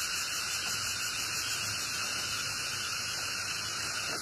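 Steady, even hiss like static, strongest in the upper range, with no distinct calls, knocks or other events.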